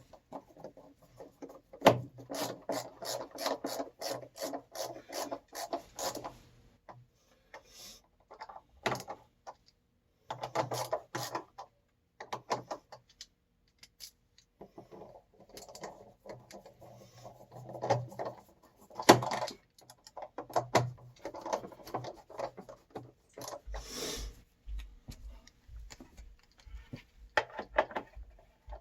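Hand-tool and handling work on a water heater: bursts of rapid clicking and rubbing, broken by short pauses, with a few louder knocks.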